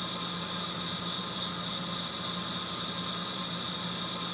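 A steady, unchanging hiss with a low hum beneath it.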